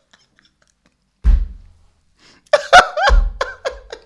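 Two low thuds on a close studio microphone, one about a second in and another about three seconds in, the second landing amid a short burst of talking.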